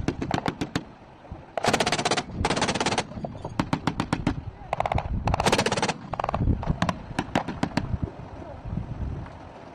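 ZU-23-2 twin 23 mm autocannon firing a series of short, rapid automatic bursts with brief pauses between them. The firing dies away about eight seconds in.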